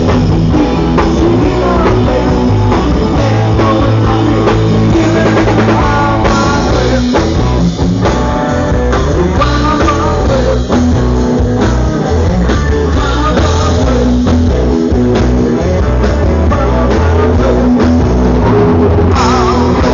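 Rock band playing, with electric guitar, drum kit and singing over a steady beat.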